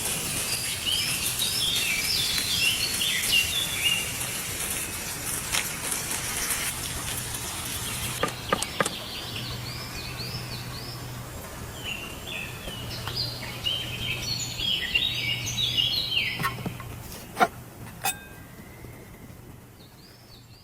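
Birds singing in repeated quick phrases of high, arched whistled notes, coming in several bursts. There are a few sharp clicks, and a steady high hiss in the first part that stops about eight seconds in.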